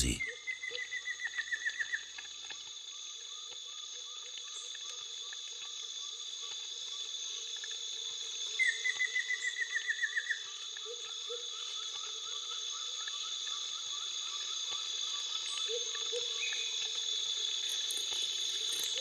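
Chirping insects: a steady high-pitched buzz with a slower repeated call running through it. Twice a rapid trill of about seven chirps a second stands out above it, once at the start and again about nine seconds in.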